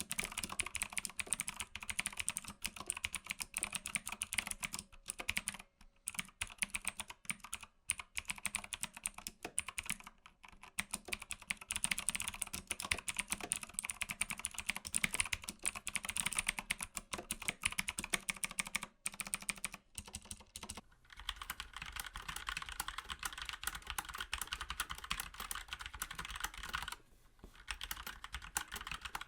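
Fast, continuous typing on a mechanical keyboard, the key switches clicking and clacking with a few brief pauses. About two-thirds of the way through the sound changes to a deeper-toned clack, as a different switch takes over.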